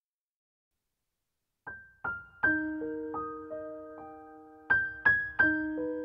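Silence for about the first second and a half, then slow piano music begins: single notes and chords struck and left to ring and fade.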